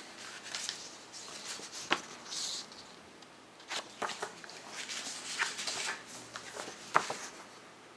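Paper and card rustling and sliding as a CD box set's booklet and photo inserts are handled, with two sharp taps, about two and seven seconds in.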